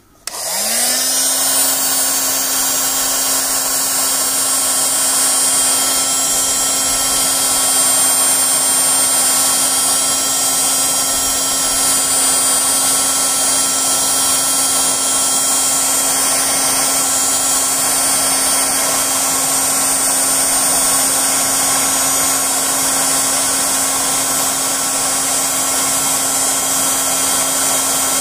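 Electric heat gun starting up, its fan rising quickly in pitch, then running with a steady blowing hum on its lowest setting. It is heating a heat-shrink solder sleeve on a wire splice to shrink the tubing and melt the solder.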